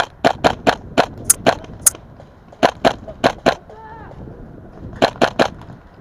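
Tokyo Marui MP7 airsoft gun fired in three quick strings of sharp shots, a few shots a second, the first string the longest.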